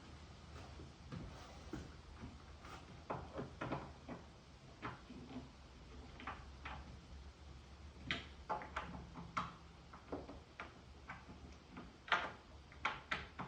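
A 4 mm Allen key working the metal connector bolts of a wooden cart: scattered small clicks and taps of the key seating and turning in the hardware, coming in quicker clusters about eight seconds in and again near the end. A faint steady hum lies underneath.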